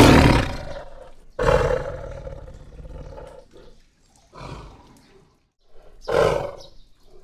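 Tiger roaring: a series of four roars, each fading away, the first the loudest.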